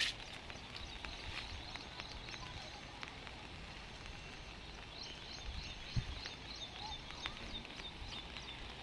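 Outdoor ambience: a steady hiss with quick, high repeated chirps from a small animal, about four or five a second, starting about five seconds in, and one sharp knock about a second later.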